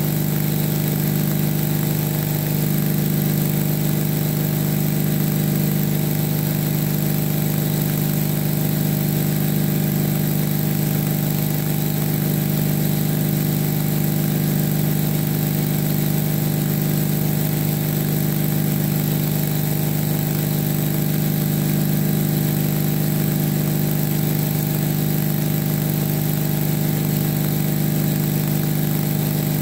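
Stick welder arc running one long continuous bead with 7018 rod: an even crackling hiss over a loud, steady low hum.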